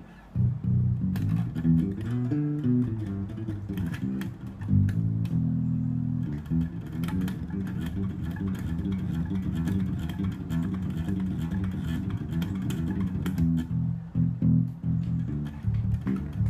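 Cort A5 five-string electric bass played fingerstyle through a home stereo speaker: a steady run of plucked bass notes with crisp finger attacks, starting about half a second in and holding one longer note around five seconds in.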